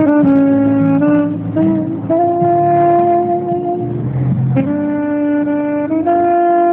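Saxophone playing a slow melody of long held notes, amplified through a microphone, over a lower accompaniment.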